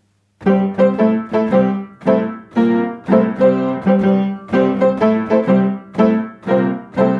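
Upright piano played in blues chords in the key of C, the chords pressed down with a wooden stick fitted with pegs (a Stirling Pianistick, blues model). Repeated chords come in an even rhythm, about two to three a second, starting just under half a second in.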